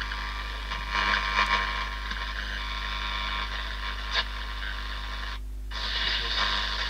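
HMV Sprite transistor radio's speaker giving a steady hiss with faint whistles and no programme, with a crackle about four seconds in and the sound cutting out completely for a moment about five and a half seconds in: the output is dropping out, which the repairer thinks is his thumb touching something in the set.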